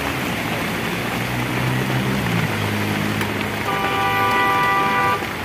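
Steady rain hiss with a motor vehicle droning past, then a vehicle horn held for about a second and a half near the end.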